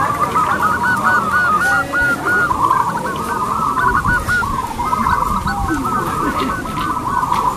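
Zebra dove (perkutut) cooing, a rapid, continuous run of short staccato notes layered with more cooing from other doves.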